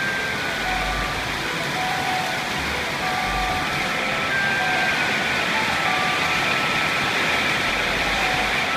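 Heavy rain pouring down in a steady roar of noise, with gusts of wind buffeting the microphone now and then. A soft background melody plays faintly over it.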